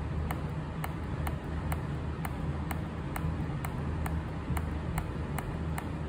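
Daikin air conditioner running with a steady low hum and airflow noise, under a regular light ticking about twice a second.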